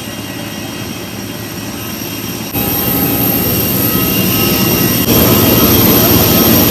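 Jet airliner's engine running, a steady roar with a high-pitched whine, being test-run. The sound jumps louder twice, about two and a half and five seconds in.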